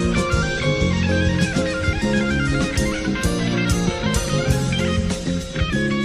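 Instrumental rock-jazz fusion band playing live: electric guitar over electric bass and drum kit, with frequent cymbal hits.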